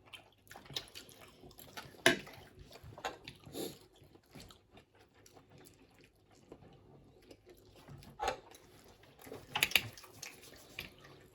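Close-up eating noises: a person chewing noodles, with scattered short clicks and mouth smacks.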